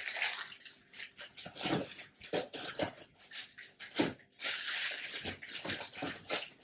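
Plastic snack packets and grocery wrappers rustling and crinkling as they are handled, with light knocks as items go into a plastic storage bin.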